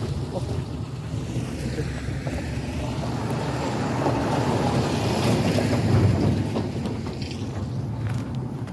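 Motor scooter on the move: steady low engine hum with wind rushing over the microphone, swelling louder in the middle and easing off near the end.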